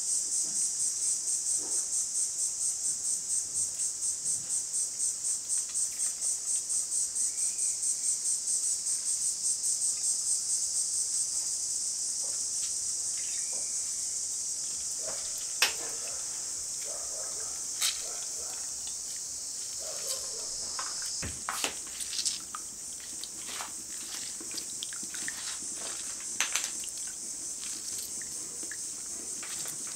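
Insects chirping in a high trill that pulses about three times a second for the first ten seconds or so, then runs on steadily. A few sharp clicks cut through about halfway and later.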